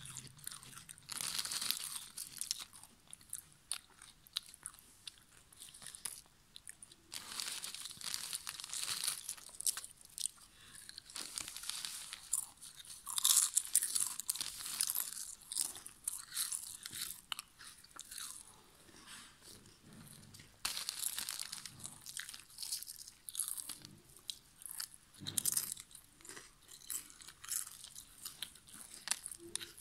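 Lay's potato chips being bitten and chewed up close: crisp crunching that comes in bursts every few seconds, with quieter stretches between the mouthfuls.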